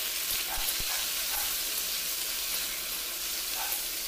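Cubed potato and taro sizzling steadily in hot oil in a kadai.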